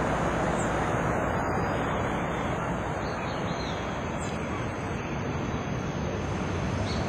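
Steady vehicle rumble, with small birds chirping from about three seconds in.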